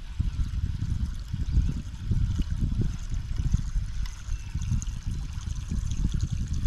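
Baitcasting reel being cranked to retrieve a Z-Man Hellraizer topwater lure across the water, over a dense, uneven low rumble. A faint steady high whine comes in about two seconds in and fades near the end.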